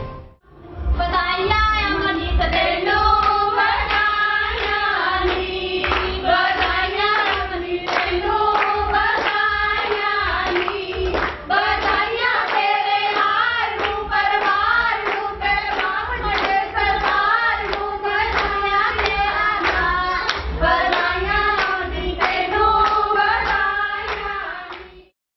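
A group of women singing a song together, with rhythmic hand clapping and a steady low beat keeping time.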